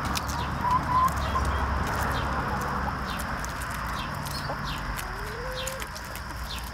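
A flock of hens clucking as they feed on cabbage leaves, with a few short higher calls about a second in and one rising call near the end.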